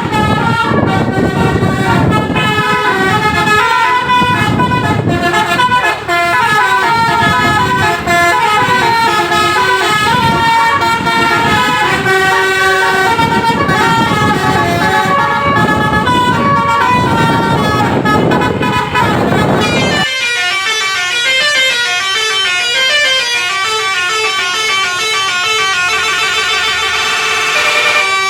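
Basuri musical air horn on a bus playing a telolet tune, a quick run of stepping notes one after another. A low rumble sits under it until about twenty seconds in, when the rumble cuts off suddenly and the tune carries on alone.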